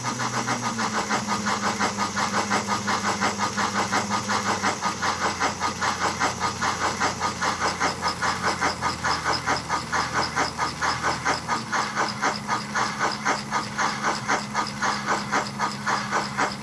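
Model K5 steam locomotive running on a rolling-road test stand, its sound board playing fast, even chuffs in time with the pistons from the new chuff trigger, with no skipped chuffs. Under the chuffs runs a steady low hum that changes pitch about five seconds in and again near twelve seconds.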